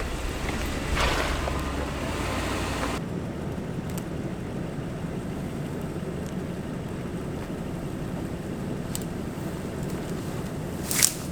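2004 Toyota Land Cruiser 100 Series with its V8 running, a steady low rumble of engine and tyres on a rough forest road. A loud hissing rush in the first three seconds cuts off abruptly, and there is one sharp click near the end.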